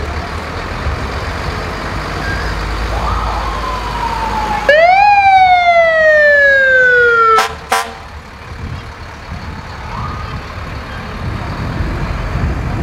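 Fire truck siren sounding as the truck passes: a loud wail that starts suddenly and falls steadily in pitch for a couple of seconds, then ends in two short sharp blips. A fainter falling tone comes just before it. Low engine rumble runs underneath.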